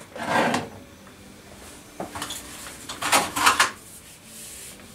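Metal hand tools being picked up and handled on a workbench: a rustle at the start, then a light click and, about three seconds in, a short run of metallic clinks and clatters.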